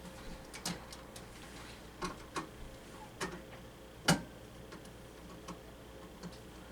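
Irregular small clicks and taps from working the wiring terminals of a smoke detector base, about seven in all, the sharpest about four seconds in.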